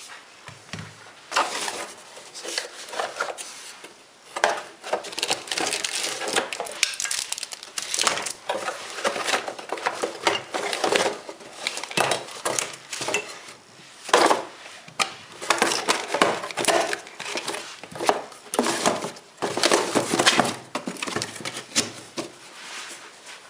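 Irregular clatter, knocks and rustling as a new angle grinder and its parts are handled and unpacked, with hard plastic and metal pieces set down and moved about. The grinder is not running.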